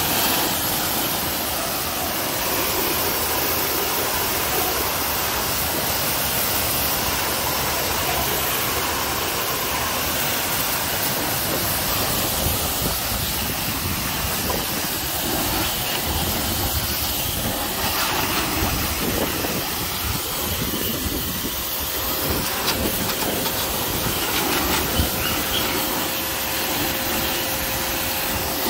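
High-pressure water jet from a pressure washer spraying steadily onto a motorcycle's bodywork and rear wheel, a continuous hiss of spray. A faint steady hum joins about two-thirds of the way through.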